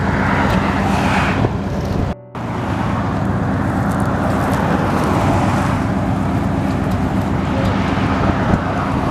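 Road traffic passing close by, cars swelling in and fading a few times, over a steady low engine hum. The sound cuts out briefly about two seconds in.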